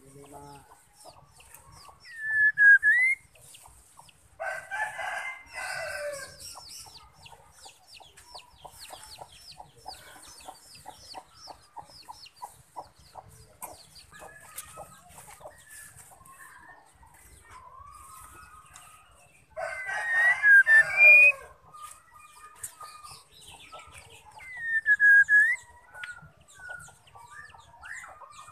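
White-rumped shama calling, which the uploader presents as a female's calls: short clear whistles that dip and rise, with faint chattering and ticking between them. Twice, about five seconds in and again near twenty seconds, a longer, harsh call of about two seconds is as loud as the whistles.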